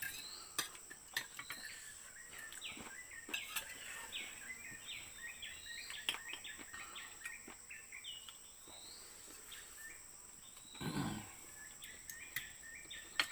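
Birds chirping in many short, quick calls over a steady high, thin insect drone, with scattered light clicks and one brief louder sound about eleven seconds in.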